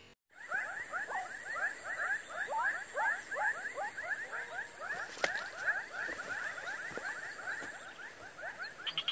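A dense chorus of short animal calls, each a quick chirp falling in pitch, several a second and overlapping, over a steady high whine. It starts suddenly just after the beginning.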